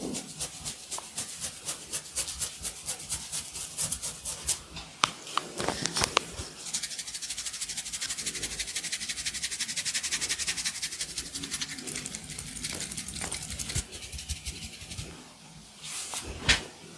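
Fast rhythmic rubbing and scraping strokes: a quick run of short ticks, about five a second, for the first few seconds, then a dense, even scratching from about seven to fourteen seconds in. One sharp knock comes near the end.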